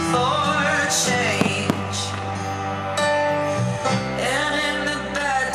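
Music: a song with guitar and a sung melody line.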